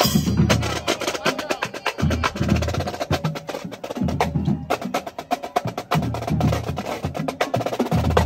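A marching drumline playing: snare drums rattle off fast stick patterns, with a deeper drum beat about every two seconds.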